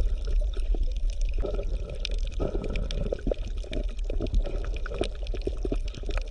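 Underwater bubbling and gurgling: irregular pops and clicks of bubbles over a steady low rumble.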